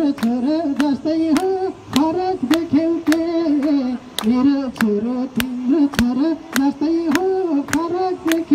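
A song: one voice singing a melody over a steady beat of about two sharp percussive hits a second.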